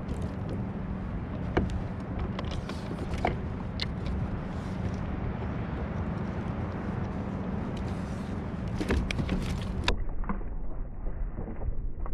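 Conventional fishing reel being cranked against a hooked lingcod: a steady low hum with scattered clicks over wind and water noise. About ten seconds in, the sound turns muffled, with a few knocks.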